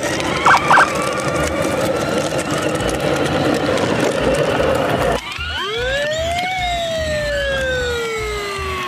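A steady rushing noise with two short tones near the start. About five seconds in it cuts off and a siren wail follows, rising in pitch, then falling slowly.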